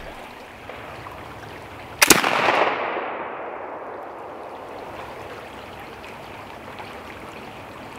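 A .54-calibre Kibler Woodsrunner flintlock rifle fires once about two seconds in: a sharp report followed by a long echo that fades over a couple of seconds. A creek runs steadily underneath.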